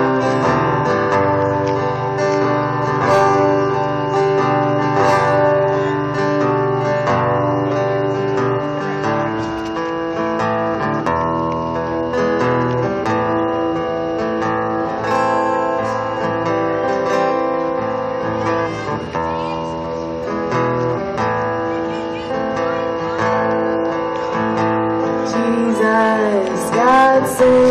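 Acoustic guitar strummed in a steady run of chords.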